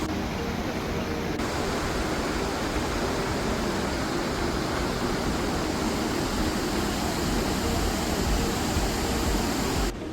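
Bow Falls on the Bow River: water pouring over the falls in a steady, even rush.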